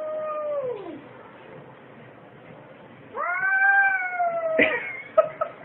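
Cats caterwauling at each other in a territorial standoff: a long drawn-out yowl that falls away about a second in, a pause, then a second long yowl, followed near the end by a sharp snap and two short cries.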